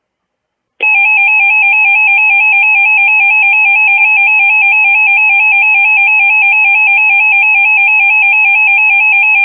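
Emergency Alert System two-tone attention signal: a loud, steady, harsh dual tone that starts abruptly about a second in and holds unbroken. It announces that an emergency alert, here a tornado warning, is about to be read.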